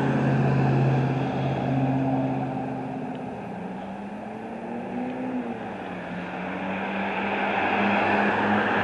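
Diesel engine of a small bulldozer working dirt, running steadily with its pitch shifting up and down as the revs change.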